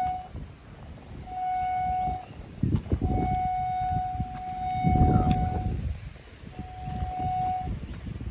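Vermeer Verifier G3 cable locator receiver sounding its steady mid-pitched signal tone, which comes and goes in three stretches as it picks up the 38 kHz locate signal on a buried cable TV line. Under it a low rumbling noise swells twice, loudest about five seconds in.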